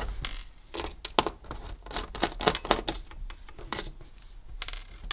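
Irregular small clicks, taps and rustles of hands handling a laptop's display cable and the metal and plastic parts of its opened lid, as the cable is worked out around the hinge.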